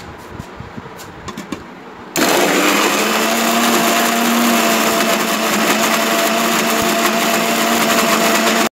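A few clicks as the stainless-steel mixer-grinder jar is closed and set in place. About two seconds in, the mixer grinder's motor starts and runs steadily at full speed, grinding tomato, onion, garlic, cumin and curry leaves into a masala paste, and cuts off suddenly.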